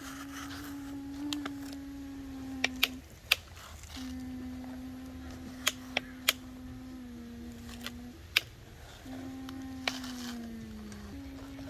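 Small electric motor of a radio-controlled model excavator whining in stretches of a few seconds, starting and stopping, with its pitch sagging slightly in the third stretch. Sharp clicks and knocks are heard in between.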